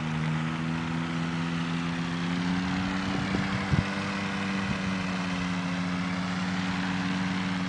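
Small aircraft engine running steadily at an even pitch, with two quick knocks a little before halfway.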